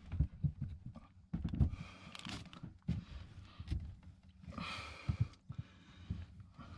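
Hands working a seacock fitting and hose down inside a boat's locker: irregular knocks and bumps of the hardware, with a couple of longer hissing rustles about two and five seconds in.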